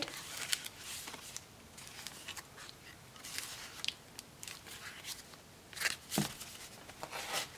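Paper pages of a handmade journal being turned and handled: soft, scattered rustles and light taps, with a louder rustle about six seconds in.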